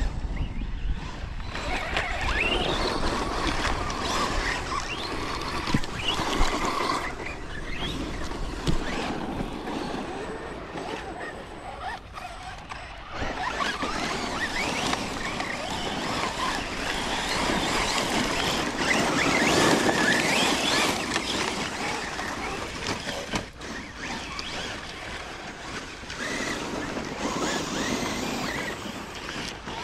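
Radio-controlled trucks driving hard, their electric motors whining up and down in pitch as the throttle changes, with tyre and dirt noise underneath; the sound dips briefly near the middle.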